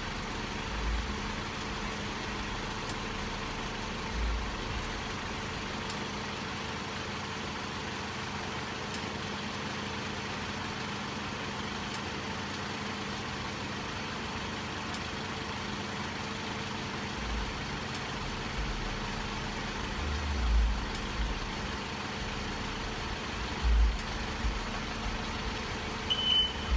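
2004 Toyota RAV4's four-cylinder engine idling steadily with the AC on, compressor engaged, while refrigerant is charged into the system. Faint ticks come about every three seconds, with a few low bumps and a short beep near the end.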